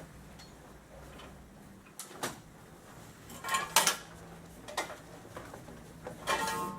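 Parts of a folding cot knocking and clinking as they are handled and packed into the cot's carry bag. There are a few separate clatters, the loudest about three and a half seconds in and again near the end, some with a short metallic ring.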